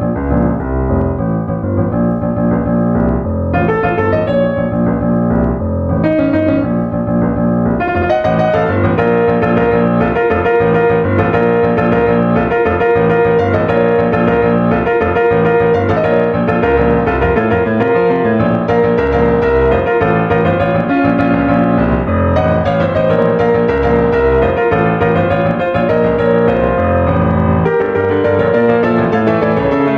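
Background music led by piano or keyboard, a steady flow of notes that grows fuller about eight seconds in.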